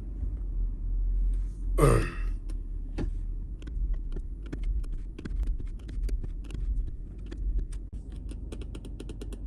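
The Toyota Land Cruiser/Lexus LX470's V8 idling steadily while the A750F transmission warms up. From about two and a half seconds in there is a long string of light, rapid clicks, and there is a brief vocal sound about two seconds in.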